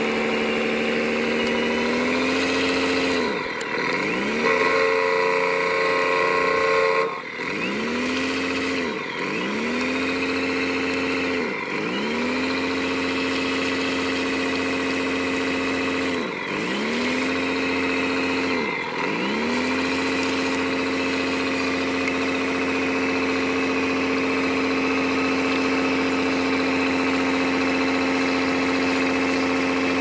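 Radio-controlled semi truck running through mud with a steady engine-like hum. The pitch drops sharply and climbs back several times during the first two-thirds, then holds steady.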